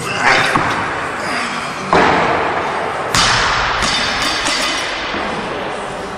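Loaded barbell with bumper plates dropped onto a lifting platform: heavy thuds that ring on in a large gym hall, the two sharpest about two and three seconds in.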